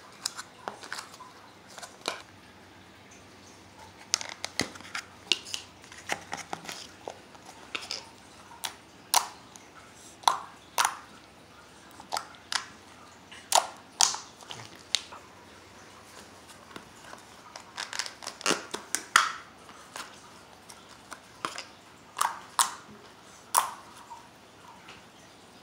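Slime being squeezed and poked by hand, giving irregular sharp clicks and pops, sometimes two or three close together.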